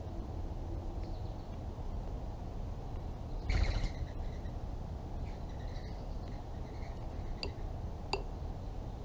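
Faint bird chirps over a steady low outdoor rumble, with a brief louder noisy burst about three and a half seconds in and two sharp clicks near the end.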